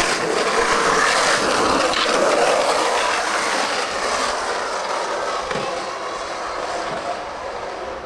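Skateboard wheels rolling over rough asphalt: a steady rolling rush that gradually fades over the second half.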